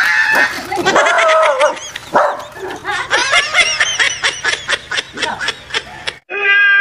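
A dog trapped under a woven bamboo basket, yelping and barking over and over in alarm, with a rapid run of high yelps in the middle. Just before the end this cuts off abruptly and a steady, held tone begins.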